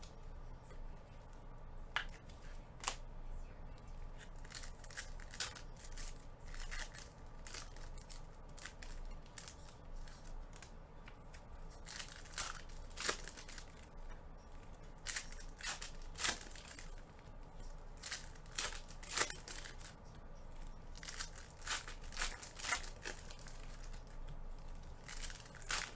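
Foil trading-card packs being torn open and crinkled, with the cards sliding and flicking as they are handled: an irregular run of sharp crackles and snaps, bunching into quick clusters at times.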